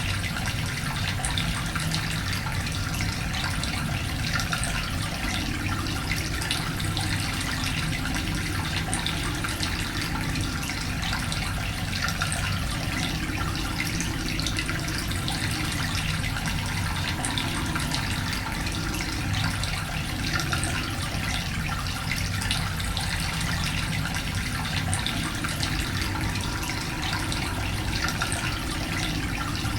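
Cave ambience: steady running water with many small echoing drips scattered through it.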